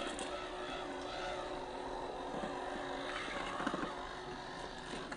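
Small electric motor and geared drivetrain of a 1/18 scale RC crawler truck whining steadily as it climbs over rock, rising and falling a little in pitch with the throttle.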